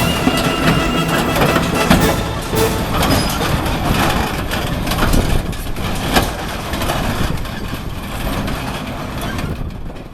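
Heavy vehicle running with frequent metallic clanks and knocks, fading out near the end.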